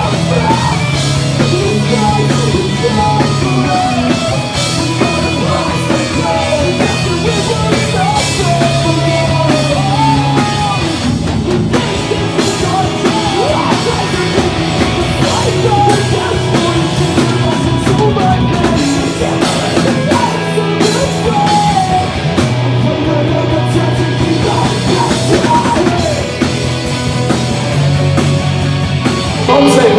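A pop-punk band playing live: drum kit, electric guitars and a singer.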